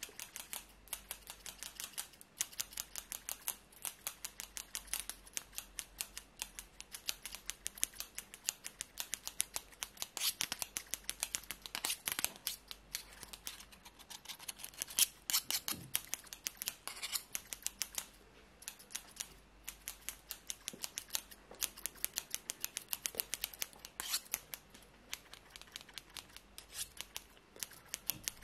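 Scissors snipping rapidly close to the microphone: a steady run of crisp metal snips, several a second, with a short pause about two-thirds of the way through.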